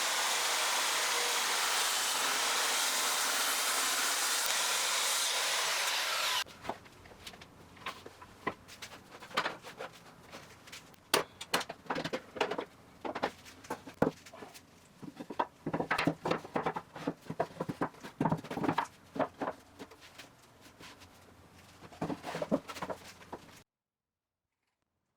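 A power tool runs with a steady noise for about six seconds and cuts off abruptly. Scattered sharp knocks and clicks of wood and tools being handled follow.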